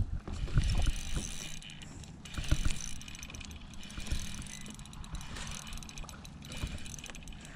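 Spinning reel being cranked under load while a hooked bass is played in, its gears whirring in spells of a second or so between pauses, with low handling knocks.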